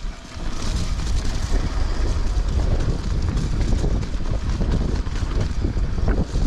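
Wind buffeting the microphone of a chest-mounted camera on a moving mountain bike, with the tyres rumbling and the bike rattling over a grassy track; a short burst of hiss about a second in.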